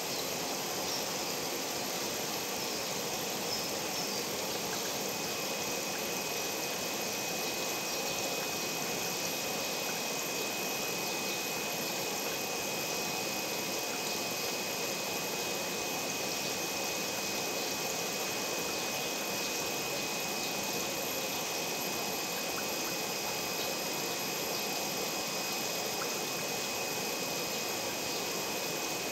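Steady hiss of aquarium aeration, air bubbling through the tank water, with a faint steady high whine over it.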